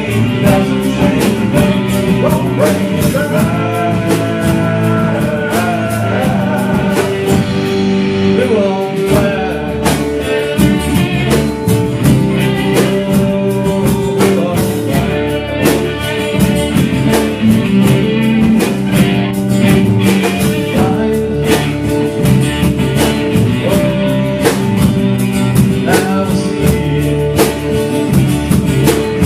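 A live band playing a rock song: electric and acoustic guitars over a drum kit, with a singing voice.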